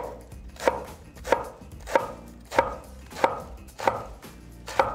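Chinese cleaver slicing napa cabbage into half-inch strips on a wooden cutting board. The chops come at an even pace, about eight of them, one every two-thirds of a second, each a short knock of the blade through the leaves onto the board.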